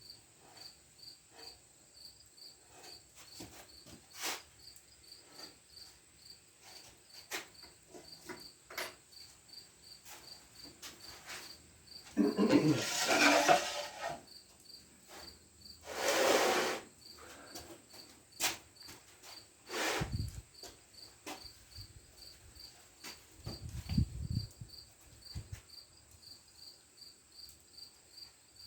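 Faint, steady chirping of a cricket, about two chirps a second. Over it come handling noises: a loud scrape about twelve seconds in, another about sixteen seconds in, and scattered clicks and low knocks.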